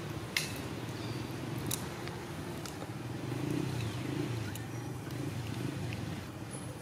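Steady low background rumble with a few short sharp clicks, the strongest about half a second in.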